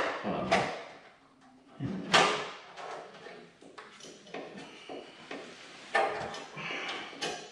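Knocks, clunks and rattle of a Tesla Model 3's front fender and wheel-well parts being handled and fitted by hand, with a few sharp knocks, the loudest near the start and about two seconds in.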